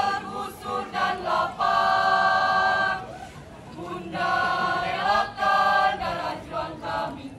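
A troop of uniformed high-school students chanting a sung yell in unison. The voices hold long notes in several phrases, with short breaks between them.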